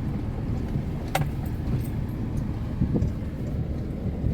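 Car driving, heard from inside the cabin: a steady low rumble of engine and road, with a sharp click about a second in.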